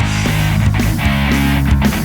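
Heavy rock music with distorted guitar and drums.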